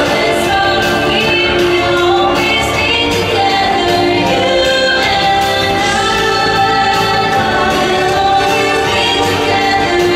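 Theme-park stage-show music played loud: a choir of voices singing over orchestral backing with a steady beat.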